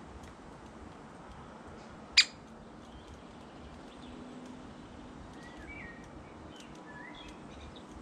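Great spotted woodpecker at a peanut feeder gives a single loud, sharp 'kik' call about two seconds in. Faint small-bird chirps follow near the end.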